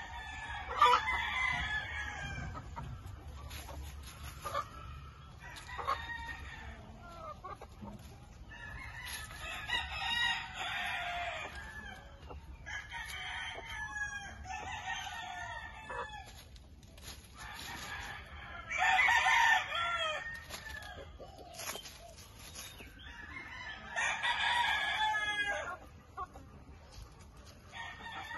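Roosters crowing, about five long crows, some overlapping, the loudest a little past the middle, with fainter clucking between.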